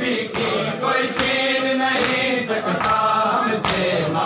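A group of men chanting a nauha (mourning lament) together, with loud slaps of hands beating chests in unison a little more than once a second, keeping time with the chant.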